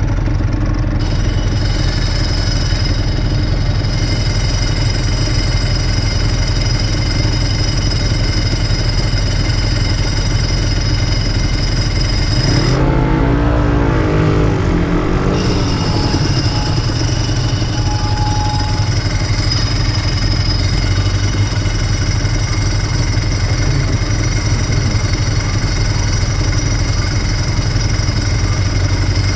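Honda NSR250SE's two-stroke V-twin engine and exhaust running steadily, with a brief swell of revving, rising and falling in pitch, about halfway through.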